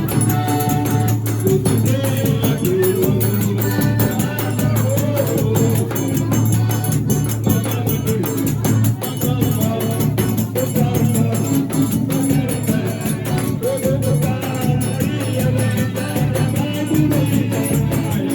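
Forró music playing loudly: singing over a steady, quick percussion beat.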